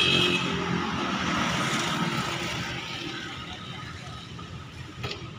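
A motor vehicle's engine running and fading away, its hum growing steadily quieter, with a single sharp click near the end.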